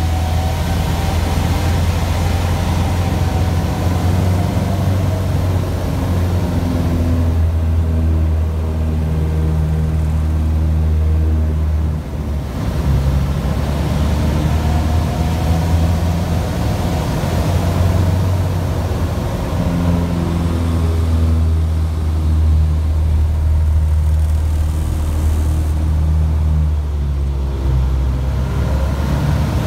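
Champion Citabria's piston engine and propeller droning inside the cockpit, the whine gently rising and falling in pitch, with a brief dip in level about twelve seconds in.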